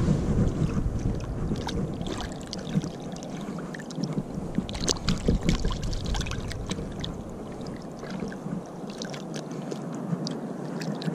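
Shallow lake water sloshing and splashing around a hand holding a small bullhead catfish under the surface at the shoreline, with many small splashes throughout.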